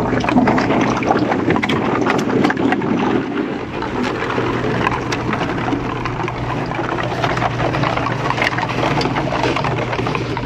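Bottle-recycling machine running with its green button pressed: a steady motor hum under a dense clatter of many clicks as the plastic bottles in its hopper are carried away.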